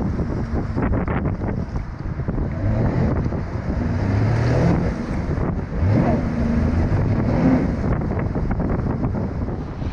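Sea-Doo GTX 155 jet ski's three-cylinder four-stroke engine revving up in short bursts, rising in pitch about three seconds in and again about six seconds in, as the craft powers onto its trailer with its jet throwing water. Heavy wind noise on the microphone runs under it.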